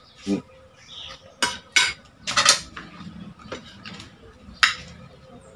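A spoon and fork clinking and scraping against a plate during a meal: a handful of short, sharp clicks, the loudest a quick cluster about two and a half seconds in.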